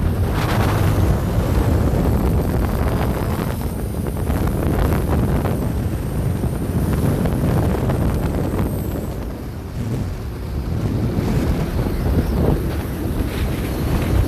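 Wind buffeting the microphone of a phone carried on a motorcycle at highway speed, a steady rushing noise with the motorcycle's engine and road noise underneath. It eases briefly about two-thirds of the way through.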